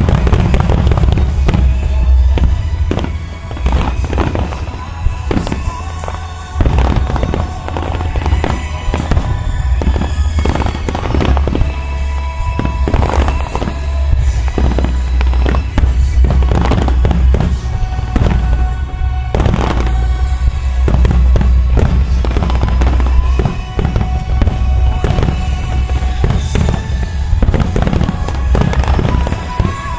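Aerial fireworks shells bursting in rapid succession, with cracks and booms throughout, over loud music with a heavy bass played for a music-synchronised fireworks show.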